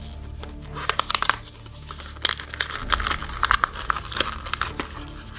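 A toy blind pack, a cardboard card with a plastic bubble, torn open by hand. There are bursts of tearing and crinkling about a second in, and again from about three to four and a half seconds.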